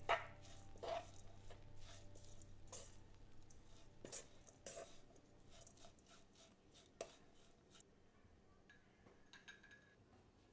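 Faint knocks and scrapes of a wooden spatula stirring stir-fried seaweed stems in a pan. A few sharper taps come in the first seven seconds and the strokes grow sparser and quieter.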